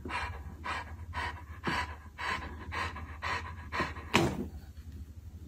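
A large long-coated dog panting with its mouth open, about two breaths a second, with one louder breath a little past four seconds in before the panting pauses.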